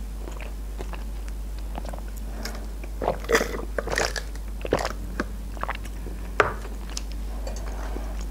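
Close-miked chewing of a mouthful of fried-chicken burger, with wet mouth clicks and crunches. Around the middle comes a sip of cola through a straw. The short sharp mouth sounds come thickest from about three seconds in.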